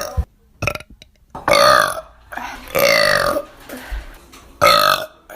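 A person burping loudly three times in a row, each burp a separate long belch.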